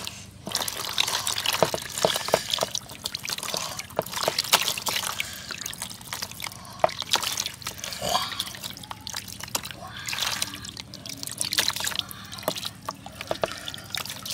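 Water trickling and dripping from a clay pot into a plastic basin of water, with many irregular small splashes as catfish are tipped out of the pot.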